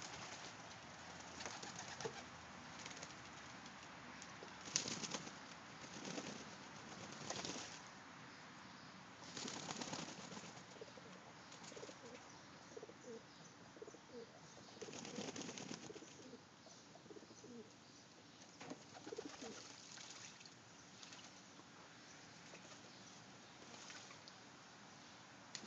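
Domestic pigeons bathing in a water tub: repeated short bursts of wing flapping and splashing every few seconds, with soft low cooing in the middle.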